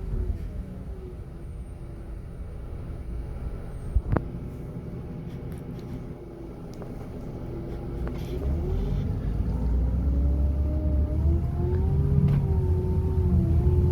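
Coach's diesel engine and road rumble heard from inside the passenger cabin. The engine note sags, then from about eight seconds in grows louder and climbs in pitch as the coach accelerates. A single sharp click sounds about four seconds in.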